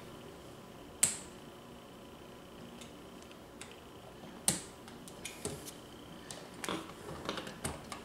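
Two sharp clicks, then a run of lighter clicks and taps, from a screwdriver and hands working a wall dimmer switch in its electrical box.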